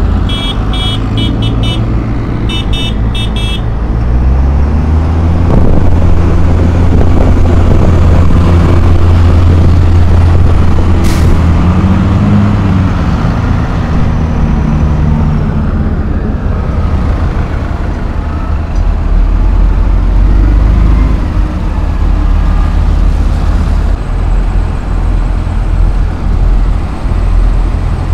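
Farm tractors' diesel engines running as they drive past close by: a loud, low, steady drone whose pitch rises briefly about twelve seconds in. Near the start a horn sounds in two quick runs of short toots.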